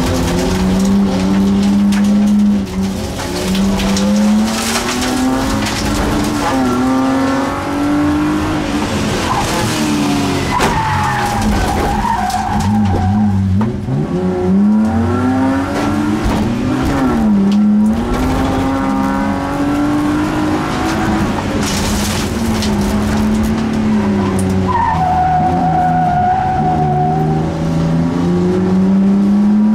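BMW E36 race car's engine heard from inside the cabin, revving up and dropping back again and again through the corners. Twice, a little after ten seconds and about 25 seconds in, the tyres squeal for a couple of seconds as the car slides.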